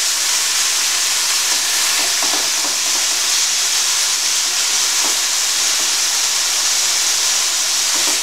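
Chicken strips sizzling in hot coconut oil in a frying pan, a loud steady hiss, with a few soft scrapes of a spatula turning the meat.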